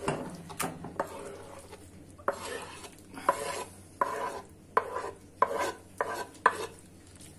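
Chopped roasted aubergine pulp being scraped off a wooden cutting board into a cut-glass bowl: a series of short scrapes and knocks of the board and utensil against the bowl, each with a brief glassy ring, coming about every two-thirds of a second in the second half.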